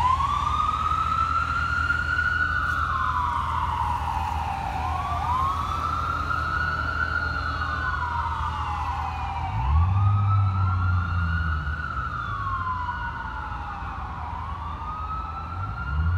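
Fire engine siren on wail, sliding slowly up and down, starting a new rise about every five seconds. A deeper rumble swells in about ten seconds in and again near the end.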